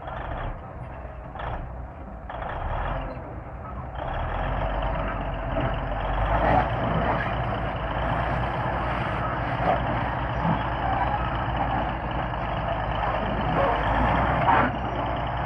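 Diesel engine of a Komatsu D155A bulldozer running under load, a steady heavy hum that grows louder about four seconds in.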